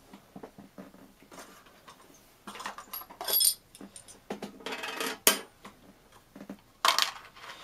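Small metal parts, the just-removed screws and a screwdriver, clinking and clattering as they are handled and set down, with scattered clicks and rustling. A brighter metallic tinkle comes about three seconds in, and a sharp click about five seconds in.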